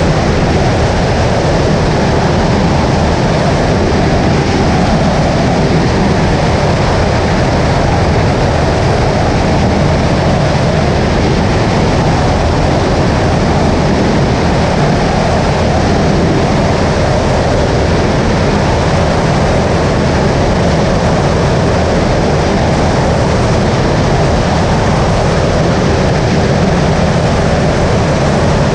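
Steady, unchanging drone of a Skyleader 500 light aircraft's engine and propeller in flight, mixed with rushing airflow noise.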